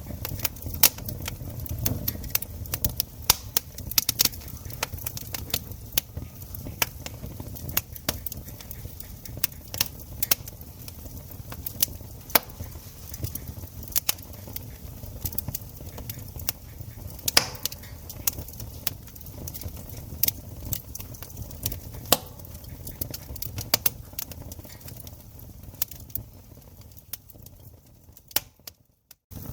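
Wood campfire crackling, with irregular sharp pops and snaps over the low rumble of the flames. The sound drops out almost entirely for a moment near the end.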